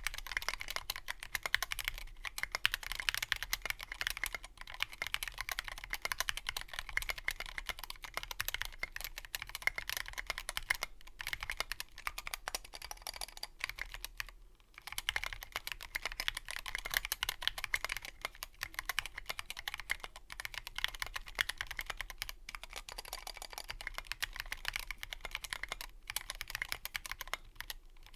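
Fast typing on a 60% mechanical keyboard with Krytox-lubed Tealio linear switches, SA-profile Abyss keycaps and a sound-dampened Revo One case: a dense stream of keystroke clacks. There are a few brief pauses, the longest about fourteen seconds in.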